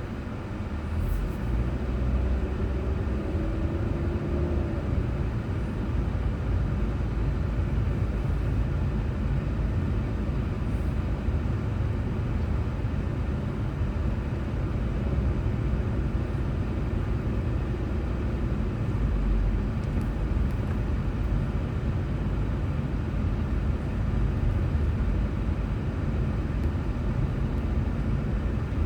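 Steady low rumble of a car's road and engine noise while driving, picked up by a dashboard drive recorder.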